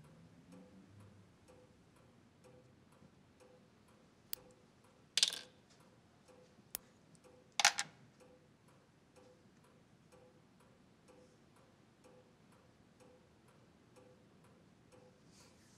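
A clock ticking steadily, about two ticks a second. Two loud, short, sharp cracks cut in about five and seven and a half seconds in, each a moment after a fainter click.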